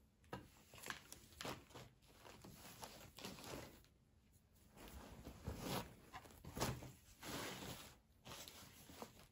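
Woven cloths rustling and brushing over a wooden table as they are handled, unfolded and laid flat, in a series of soft, irregular swishes, the loudest about six and a half seconds in.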